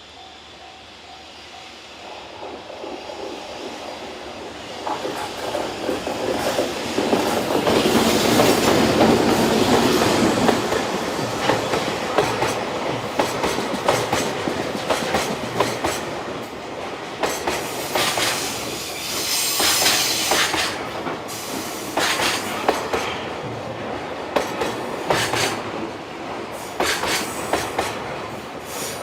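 JR freight train passing close by on a single-track line. The sound builds as the electric locomotive approaches and peaks about eight to ten seconds in. The wagons then roll past with a rhythmic clickety-clack of wheels over rail joints and bursts of sharper high-pitched wheel noise. A level-crossing bell rings in the first couple of seconds.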